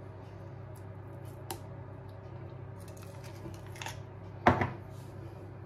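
A metal spoon clinking and scraping against glass as thick praliné paste is spooned from a glass jar into a glass bowl of pastry cream: a few soft clicks, then a sharp double clink about four and a half seconds in.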